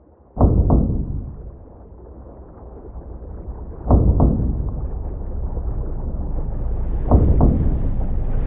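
Three deep double knocks, each pair a quarter-second apart and the pairs about three seconds apart, each followed by a booming rumble; a low rumble and hiss swell toward the end.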